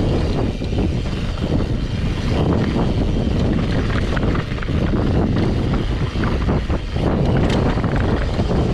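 Wind buffeting the action camera's microphone over the crunch of mountain bike tyres on a loose gravel trail at descending speed, with frequent rattles and clicks from the bike over bumps.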